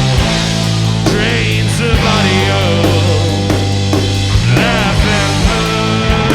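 A rock band playing an instrumental passage: sustained distorted electric guitar with bending lead lines over bass and a steady drum kit beat.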